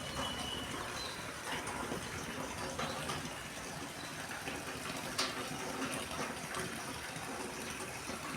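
Steady rain falling, with scattered sharper drip ticks, one louder about five seconds in.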